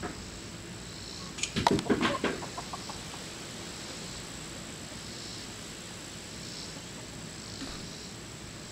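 A chicken clucking in one short burst of quick calls about a second and a half in, trailing off within a second.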